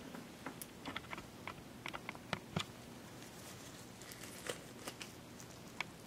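Faint room noise with scattered small clicks and light taps, the two loudest a quarter-second apart about two and a half seconds in.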